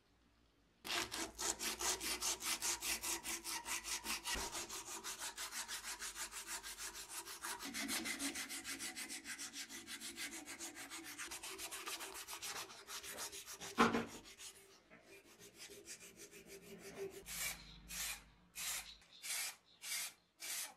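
Strip of sandpaper pulled rapidly back and forth, shoeshine-style, around a small black knob on a rod clamped in a vise, rasping in even strokes about five a second. One sharp knock past the middle, then a handful of short separate bursts near the end.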